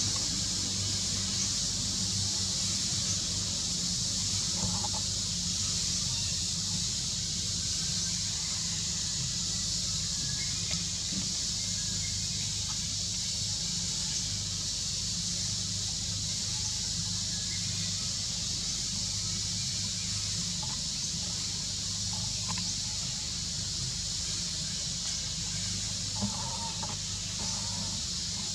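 Outdoor ambience: a steady high-pitched drone and a low hum throughout, with a few faint short calls about five seconds in and again near the end.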